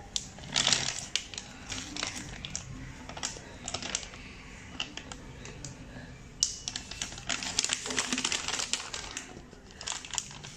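Plastic flour packet crinkling and crackling with light clicks as a small handheld heat sealer is clamped on its edge and slid along it. The crackling comes in irregular bursts, a short one near the start and a longer, denser one past the middle.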